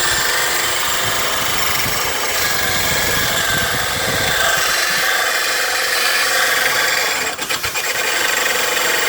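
Electric drill spinning a sharpening stone against the edge of a steel lawn mower blade: a loud, steady grinding that falters briefly about seven and a half seconds in.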